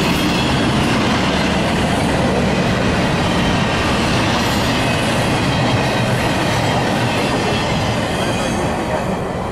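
Double-stack intermodal container train's well cars rolling past at trackside, steel wheels running on the rails. The sound starts to fade near the end as the last car goes by.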